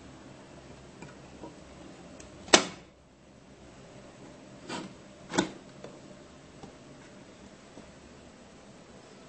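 Small wooden jewelry cabinet doors being opened by hand: one sharp click about two and a half seconds in, then two smaller clicks about half a second apart a couple of seconds later, with faint light ticks of wood being handled.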